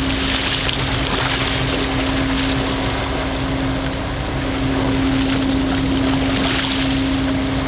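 Wind rushing on the microphone and choppy water, over a steady low engine hum from a boat.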